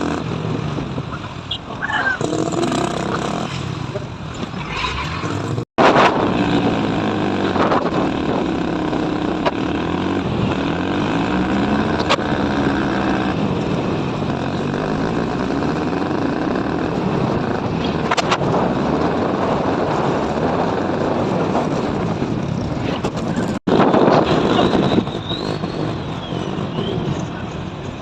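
Car engine and road noise on the move, the engine note slowly rising and falling in pitch. The sound breaks off for an instant twice.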